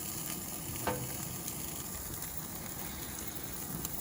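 Lamb chops sizzling on the grate of a Weber grill over flaring flames, a steady hiss, with one short sharp sound about a second in.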